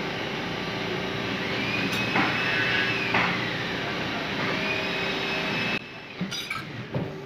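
Metal-fabrication shop machinery running: a steady hum under a constant rush of noise, with a whine that rises and falls a few times. Two knocks come near the middle, and much of the noise cuts off suddenly about six seconds in.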